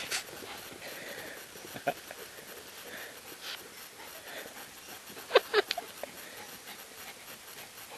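A dog panting hard close by after running fetch, with a few short sharp sounds in quick succession about five and a half seconds in.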